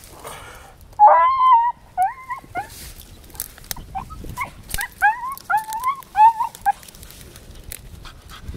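Beagle yelping and whining at a hollow log where a rabbit has holed up. One longer high yelp about a second in, then a run of short rising yelps.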